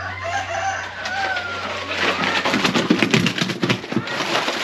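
A rooster crows once in the first second or so. Then comes a stretch of crunching and scraping on gravelly soil around a loaded wheelbarrow.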